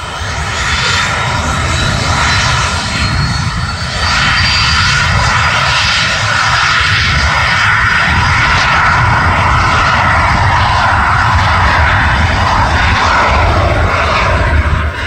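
Raytheon Hawker 800XP business jet's twin Honeywell TFE731 turbofans running loud, a high turbine whine over a steady rush of jet noise that builds during the first second.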